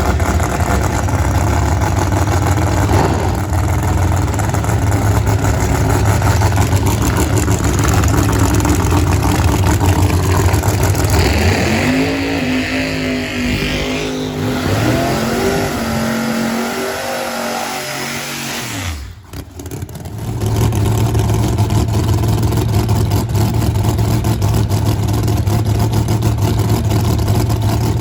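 Loud drag race car engines running, with an engine's pitch rising and falling several times about halfway through. The sound briefly drops away, then the steady loud engine noise returns.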